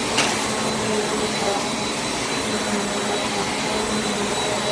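Bissell CleanView Compact Turbo upright vacuum running steadily as it is pushed over an area rug, a constant rushing noise with a steady whine. A brief click sounds about a quarter second in.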